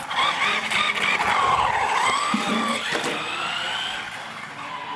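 Radio-controlled UTV's motor whining, the pitch dipping and then rising as the truck speeds away, fading near the end.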